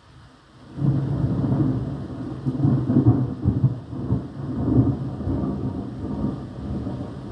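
Thunder: a clap breaks in suddenly about a second in and rolls on in several low swells, easing off slowly toward the end.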